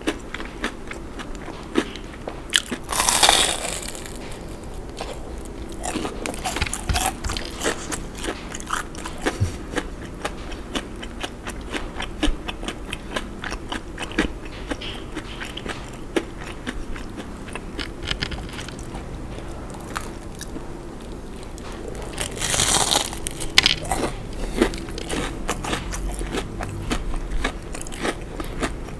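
Close-miked chewing of a crumb-coated fried shrimp donut: a run of irregular crunches and crackles from the crispy coating, with wet mouth sounds. Twice, a few seconds in and again about two-thirds of the way through, a louder hissing rush lasts about a second.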